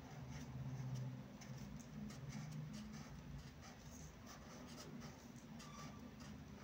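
Felt-tip marker nib drawn across paper in short, faint, irregular scratching strokes as letters are written by hand, over a steady low hum.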